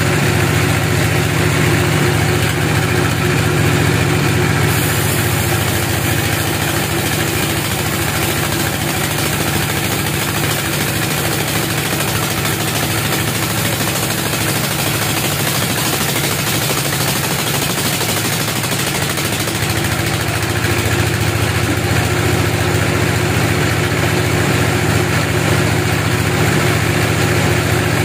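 Sawmill bandsaw running and cutting lengthwise through a large log: a steady machine drone under a hissing saw noise. The hiss grows louder about five seconds in.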